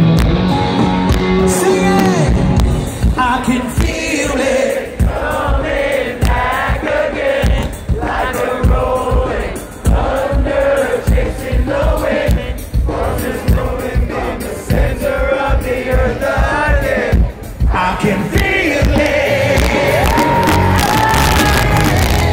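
A rock band playing live through a stadium PA, with a male lead vocal and the crowd around the microphone singing along.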